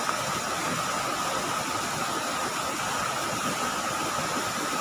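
Steady rush of a flooded river's fast-moving water, an even noise with no breaks.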